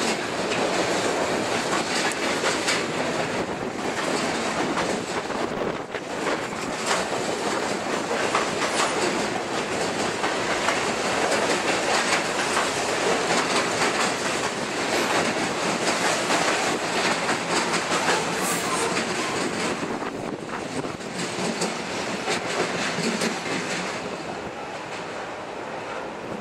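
Freight train cars rolling past close by: a steady clatter of wheels over the rail joints that eases off slightly near the end as the last cars go by.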